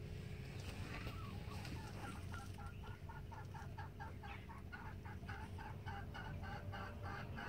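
Bantam hen clucking in a rapid, even run of short clucks, about four a second, starting a second or two in and still going at the end.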